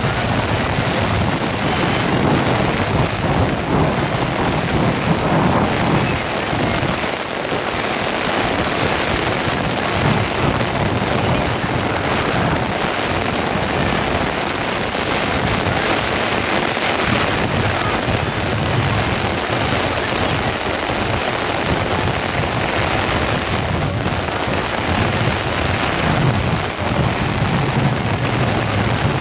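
Heavy downpour from a sudden summer cloudburst: rain pouring down as a loud, steady, unbroken hiss, with some low rumbling of wind on the microphone.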